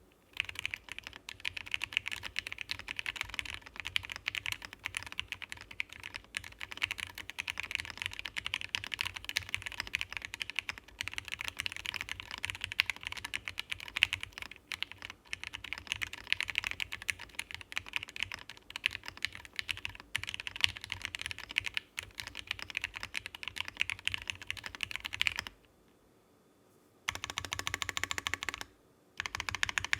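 Fast continuous typing on a SheuBox Fallacy custom mechanical keyboard with lubed Durock Lavender linear switches and GMK keycaps on an FR4 plate. The typing stops about 25 seconds in, then comes back in two short bursts of quick, evenly spaced keystrokes near the end.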